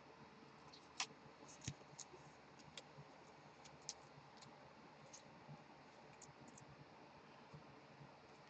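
Near silence: room tone with a handful of faint, scattered clicks, the clearest about a second in and again near four seconds.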